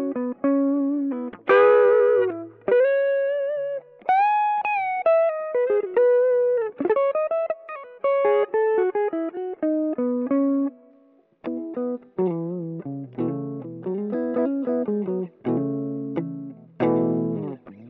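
Electric guitar played through the Hotone Ampero II Stomp modeller with its Beefy Boost, a model of the Xotic BB Preamp, switched in: single-note lead phrases with string bends, then from about 12 seconds in, busier riffing on several strings at once.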